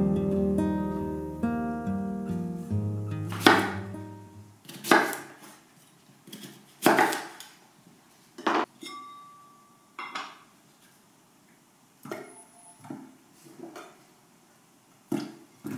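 Acoustic guitar music fading out over the first few seconds, then a chef's knife slicing sweet potatoes on a wooden cutting board: irregular separate knocks and light clinks, one every second or two.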